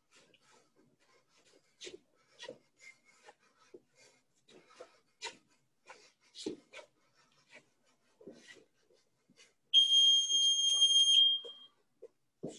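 Faint, scattered scuffs and taps of footwork on a studio floor. About ten seconds in comes a loud electronic beep, one steady high tone held for about a second and a half.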